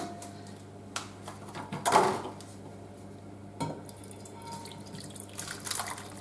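Creamy leek and bacon gnocchi sloshing and plopping as it is poured from a pan into a casserole dish, loudest about two seconds in, with a few sharp knocks of the pan or utensil against the dish.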